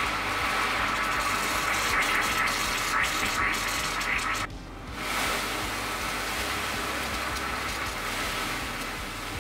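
Caustic soda pearls fizzing and crackling in a glass bowl of water, with a brief drop about halfway through before the fizzing carries on.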